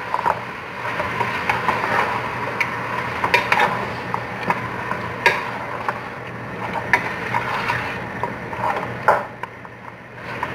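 Wooden spoon stirring chunks of camel meat, tomato and chilies in an aluminium pot, with irregular knocks and scrapes against the pot over a steady frying hiss.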